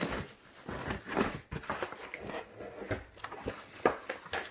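Items being shifted around inside a box during a search through its contents: irregular knocks, taps and short rustles, the sharpest knock a little before the end.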